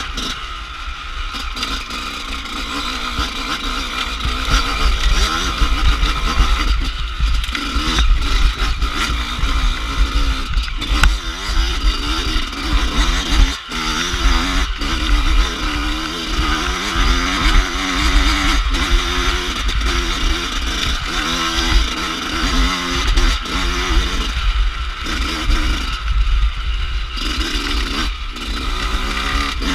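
Dirt bike engine revving up and falling back over and over as the bike is ridden over rough trail, with a steady low wind rumble on the microphone.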